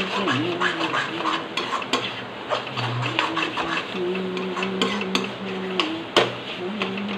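Metal spatula scraping and knocking against a steel kadhai as a thick tomato masala paste is stirred and fried, in quick irregular clicks and scrapes. A low, wavering hum runs underneath.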